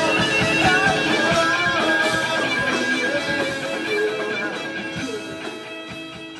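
Background music fading out steadily to the end.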